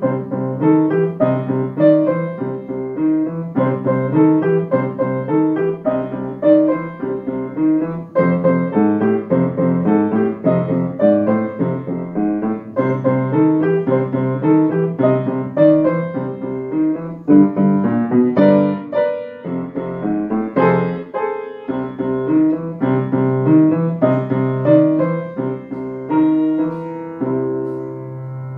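Solo upright piano playing a steady, rhythmic blues piece with a repeating bass pattern in the left hand, ending on a held chord near the end.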